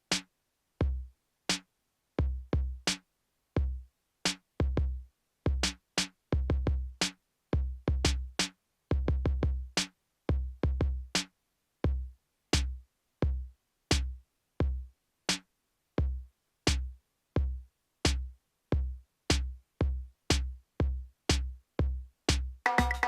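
Eurorack modular drum pattern of separate kick-drum hits with clicky attacks, in an uneven, stumbling rhythm with short silent gaps between hits. A dense, sustained pitched synth texture comes in near the end.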